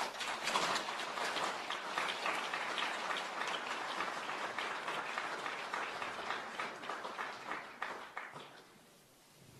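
Audience applauding, dying away about eight to nine seconds in.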